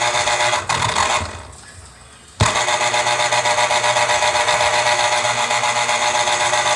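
Black & Decker electric citrus juicer motor running with its reamer spinning under a pressed fruit. About a second in it winds down and goes quiet, then starts up sharply again about two and a half seconds in and runs steadily. The juicer has no switch and runs only while the fruit is pressed down on the reamer.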